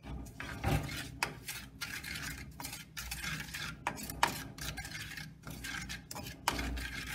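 A black spoon stirring and scraping a wet spice-and-vinegar paste around a clay pot: a continuous run of scrapes with occasional sharper knocks against the pot.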